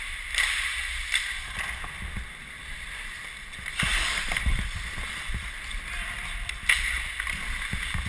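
Ice hockey skates scraping and carving across the ice during play, heard close up from the wearer's helmet camera, with harder scrapes coming in surges, the loudest about four seconds in, and a few short sharp knocks.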